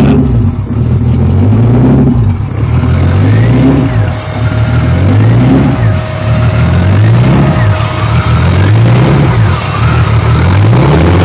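Turbocharged BMW S52 3.2-litre inline-six on a MegaSquirt standalone ECU idling cold, its revs rising and falling over and over about every one and a half to two seconds: the idle hunting that it does until it warms up.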